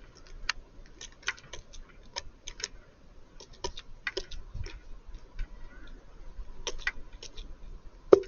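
Irregular sharp ticks and taps, several a second at times, over a faint steady hum, with a louder knock near the end.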